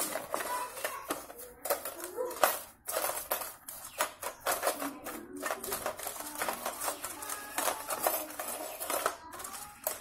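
A steel bicycle cassette being scrubbed with a brush in a tin bowl of cleaning liquid: rapid, irregular scraping and clinking of the sprockets against the tin, with wet swishing.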